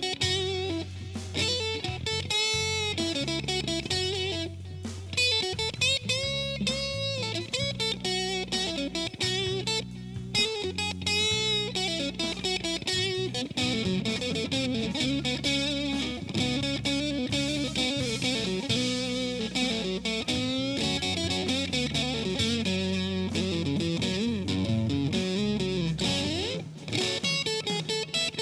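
Electric guitar solo in a slow blues, with bent notes and vibrato over the band's steady low backing line.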